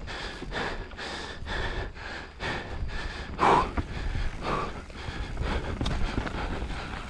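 A mountain biker panting hard from exertion, about two breaths a second, with one louder gasp about three and a half seconds in, over a steady low rumble of riding noise.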